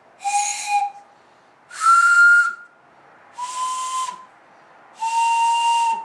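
Four short breathy blasts on a homemade wooden train whistle cut from a 2x4, one into each of its four pipes in turn. Each blast is a single steady note at a different pitch, and the second is the highest and loudest. Each pipe is being tested for its note while the glue on its dowel plug is still wet.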